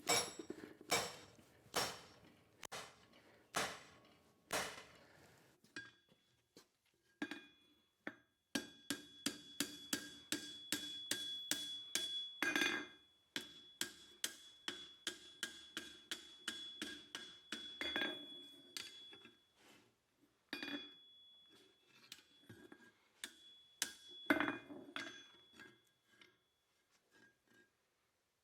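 Hand hammer striking a 1/2 inch square steel bar on an anvil while forging. Spaced blows about a second apart come first, then a long run of quick strikes, several a second, with a steady metallic ring, then scattered blows toward the end.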